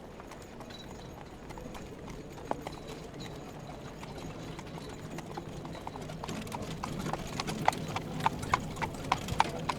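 Horse hooves clip-clopping on a street, becoming louder and sharper about two-thirds of the way in at about three or four strikes a second, over a low steady street murmur.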